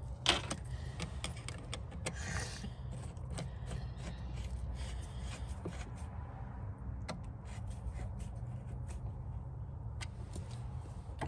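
Screwdriver turning the worm-gear hose clamps on an intake tube's rubber coupler: scattered small clicks and scrapes, with a sharper click about a third of a second in, over a steady low hum.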